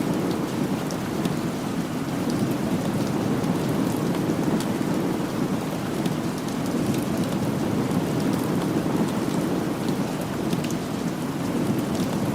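Steady rain falling, a dense even rush with many small sharp ticks scattered through it.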